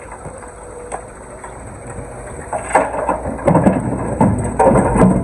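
Stones and rubble clattering and crunching as an excavator breaks down a stone wall: a run of irregular impacts starting about halfway through, over a steady low engine rumble.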